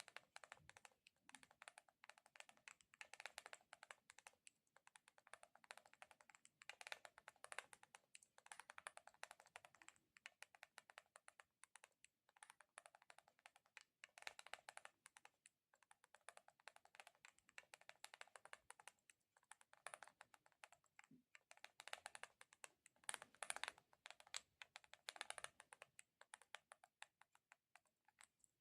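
Close-miked ASMR sticky sounds: quiet, rapid crackly clicks of a tacky surface being tapped and pulled apart, coming in bursts with short pauses between them.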